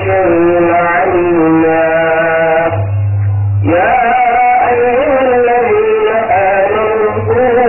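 An imam chanting a Quran recitation during the standing part of the prayer: one man's voice in long, wavering held notes. It breaks for about a second near the middle, and a low hum shows through in the gap.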